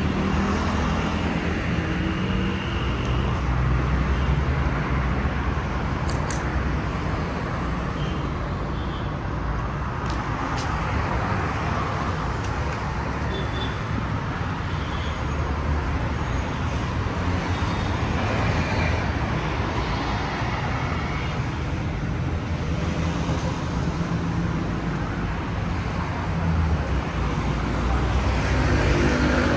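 Steady road traffic from many cars: engines humming and tyres on the road, swelling and easing as vehicles pass, with no break.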